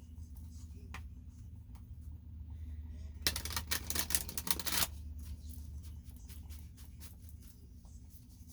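Tarot cards being shuffled: a dense run of rapid card clicks lasting under two seconds about three seconds in, with scattered small clicks of cards being handled before and after. A steady low hum sits underneath.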